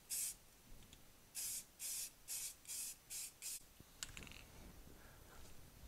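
Rust-Oleum aerosol spray-paint can spraying in short bursts: one quick spray, then six short sprays in a row about two a second. A faint click near the end.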